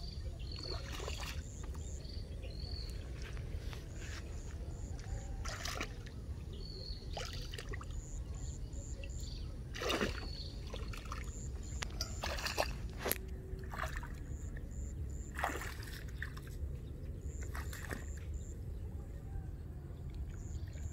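Bare feet wading through shallow, muddy pond water, with a splash or slosh every few seconds over a steady low rumble. Short, high chirps come in little groups throughout.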